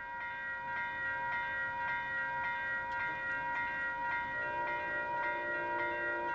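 Railway level crossing warning bell ringing at an even beat of about two strikes a second. About four seconds in, a train horn sounds a chord in the distance for about two seconds.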